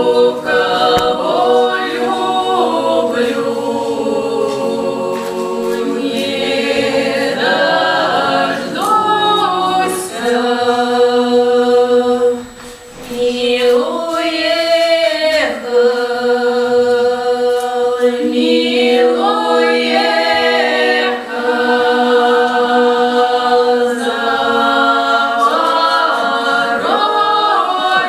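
A folk ensemble singing unaccompanied in several parts, in the southern Russian Voronezh village style, with long held notes over a steady sustained lower voice. The singing breaks off briefly about twelve seconds in between phrases, then resumes.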